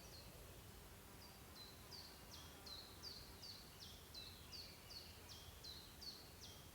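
Faint bird song: a small bird repeating a short, high, down-sweeping chirp about three times a second, starting about a second in, over a quiet background hiss.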